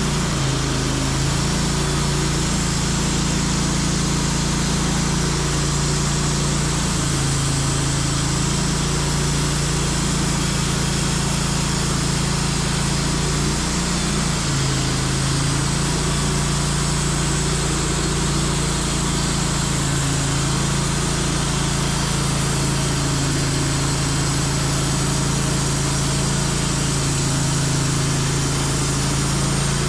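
Portable band sawmill running steadily, its engine at a constant speed as the bandsaw blade cuts through a maple log. The engine note shifts slightly a couple of times as the load changes.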